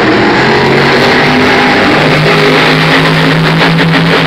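Monster truck engine running loud, its sound filling the arena, with rock music playing over it.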